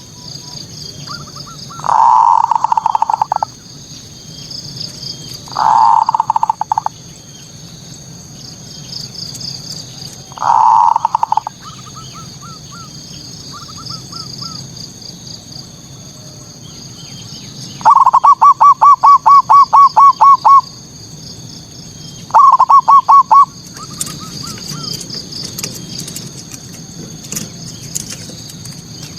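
Zebra dove (perkutut) cooing in repeated phrases of quick rhythmic notes, about five loud bouts, the longest a fast even series lasting a couple of seconds. A faint high-pitched chirping runs steadily behind.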